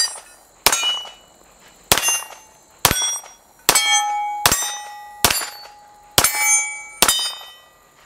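Springfield Armory 1911 DS Prodigy 9mm pistol fired in slow, steady succession, about nine shots roughly a second apart. Each shot is followed by steel targets clanging and ringing at different pitches.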